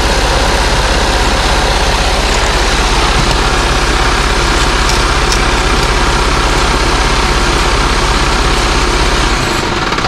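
Mercedes-Benz Actros truck's diesel engine idling steadily close by, with the PTO hydraulic pump switched on. The low engine rumble cuts off suddenly near the end.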